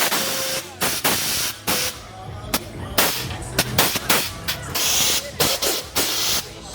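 Pressurised gas let out in short hissing bursts, two longer hisses about five and six seconds in, over a low hum and a few voices.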